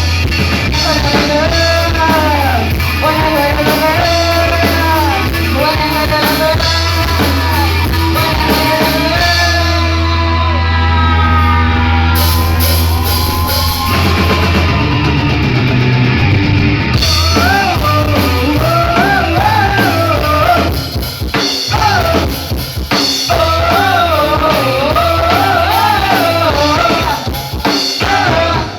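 Rock band playing live: a singer over drum kit and guitar, loud, with brief dips in level about two thirds of the way through.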